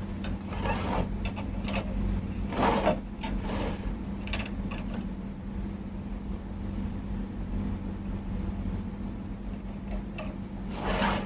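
A few short scuffs and knocks, the loudest a little under three seconds in, over a steady low hum.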